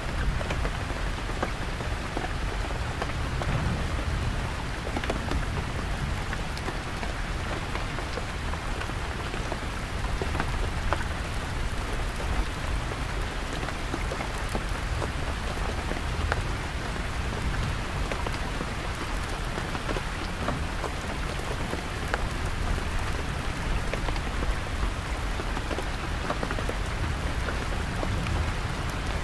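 Heavy rain falling steadily on a canvas tent, with scattered drop ticks over a continuous low rumble of deep, distant thunder.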